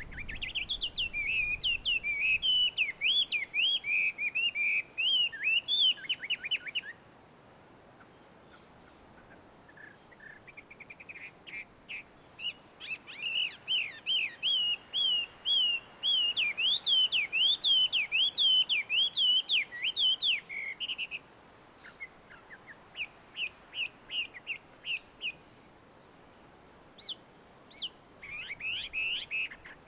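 Chinese hwamei singing: long, loud runs of rapid, ever-changing whistled notes, breaking off about seven seconds in and resuming, with shorter, softer series of repeated notes in the last third.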